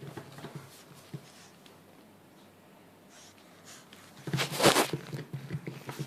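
Pug puppy snuffling with its nose pressed against a drawer: faint sniffs at first, then a loud snort about four seconds in.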